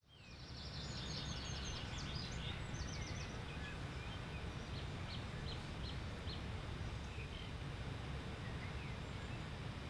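Outdoor bird song and calls over a steady low rumble: a cluster of high chirps and trills in the first two or three seconds, then a short run of about five quick high notes and scattered calls.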